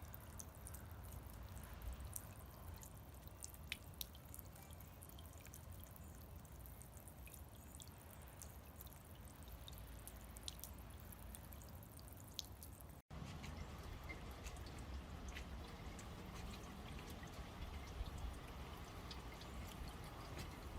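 Small floating solar-powered bird bath fountain pump spraying a low jet into the water: soft trickling with scattered drips and splashes. Partway through, the water sound steps up a little louder.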